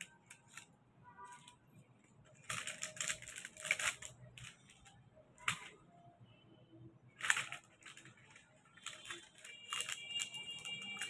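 Metallic foil paper crinkling and rustling in short, uneven bursts as a foil Christmas ball is handled and shaped.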